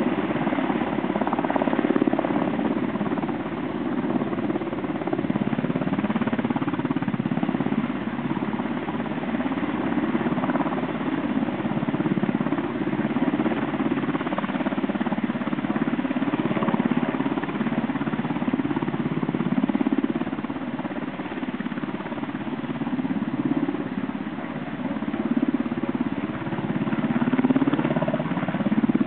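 Military helicopter running close by: a steady drone of rotor and engines, its loudness swelling and dipping slightly.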